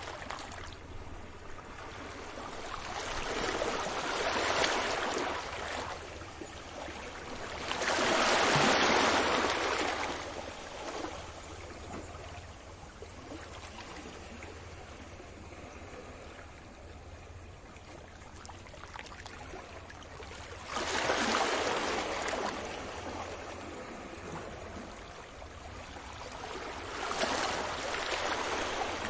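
Sea waves breaking and washing up the shore, swelling loudly four times with quieter wash between.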